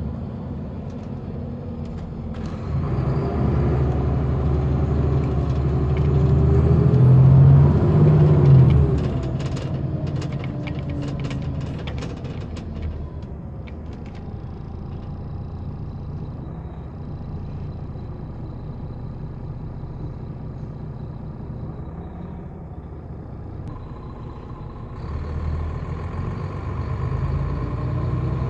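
Bova Futura coach's diesel engine heard from inside the passenger cabin, pulling hard and rising in pitch for about six seconds before dropping back. It then runs quieter as the coach rolls on, with a run of clicks and rattles, and pulls harder again near the end.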